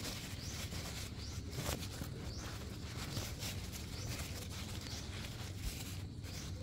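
Paper towel wrapping being crinkled and pulled off a succulent by hand: irregular soft rustles and crackles.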